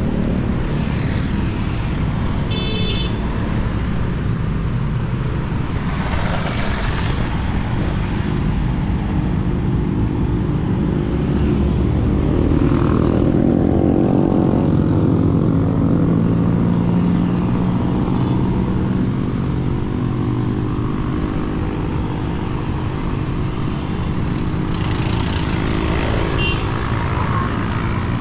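A motor vehicle engine running steadily, with a low rumble and a rush of noise throughout; an engine note swells and fades again around the middle.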